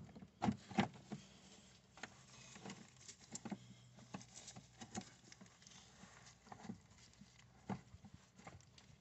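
Faint, irregular clicks and knocks of a socket wrench on a long extension being worked on a bolt under the car, with light tool-handling clatter.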